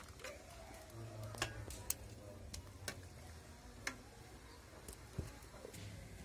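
Metal ladle clinking against a steel pot and bowl while boiled potatoes are scooped out: a handful of short, sharp clinks at irregular intervals.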